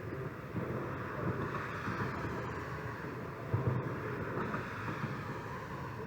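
Steady rumbling noise of wind buffeting the microphone, with a brief louder knock about three and a half seconds in.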